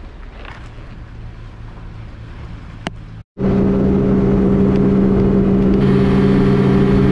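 A low steady hum, then from about three seconds in a Yamaha 90 outboard motor running steadily at speed, loud and even, with the rush of water and spray from the wake.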